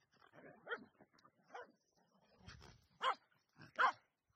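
Finnish Spitz giving a run of short, high yips and barks, about five calls with the two loudest near the end: excited vocalising.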